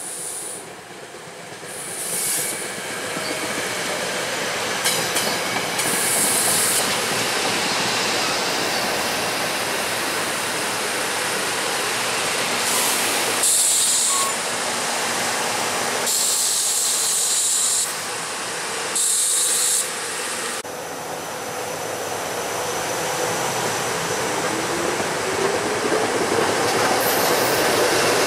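SEPTA Regional Rail electric multiple-unit train running alongside the platform, its steady rail and running noise building up. The noise is broken by about five bursts of high hissing, each a second or two long, and a whine rises in pitch near the end.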